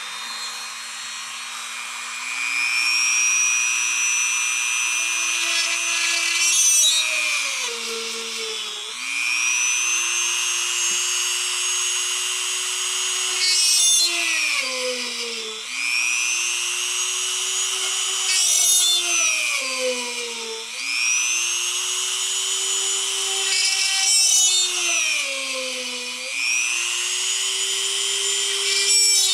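Handheld rotary tool with a small bit drilling holes through a wooden electronics-bay sled: the motor's whine rises as it comes up to speed about two seconds in, then about every five seconds there is a short rasp of the bit cutting through the wood and the motor's pitch dips and recovers, one hole after another.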